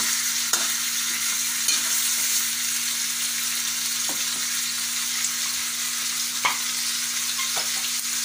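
Pork chops with garlic and onion sizzling steadily in hot oil in a wok, a spatula stirring them briefly at the start, and a few short sharp clicks scattered through.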